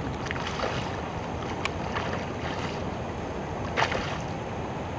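Wind and water lapping around a small fishing boat, a steady rushing noise, with a few brief sharp sounds; the loudest comes near the end.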